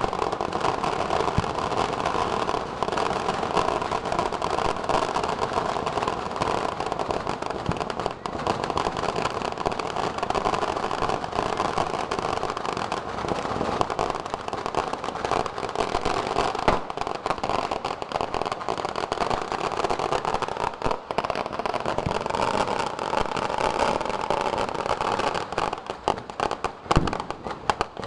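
Firecrackers going off in a dense, unbroken crackle of rapid bangs, with a few louder single bangs standing out.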